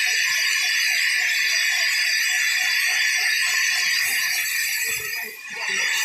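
Sawmill band saw cutting lengthwise through a teak log: a steady, high-pitched hiss of the blade in the wood, with a fast rhythmic rattle underneath. The sound dips briefly about five seconds in, then comes back.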